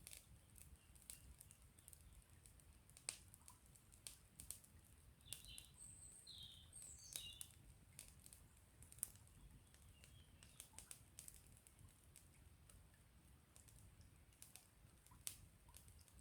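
Wood campfire crackling, with sharp irregular snaps and pops. A few short high bird chirps come in about a third of the way through.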